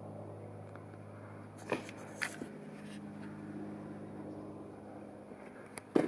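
A steady low hum with a few short clicks, two of them about two seconds in and one near the end.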